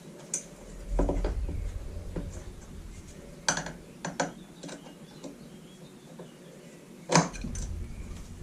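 Scattered metal clicks and knocks of a screw and screwdriver being handled as a screw is fitted into the blower's pull-starter housing, with a sharper knock about seven seconds in.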